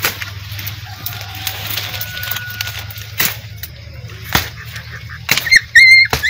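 Twigs, branches and dry leaves crackling and snapping as someone pushes through dense brush on foot, over a steady low hum. Near the end comes a loud, high-pitched call lasting under a second.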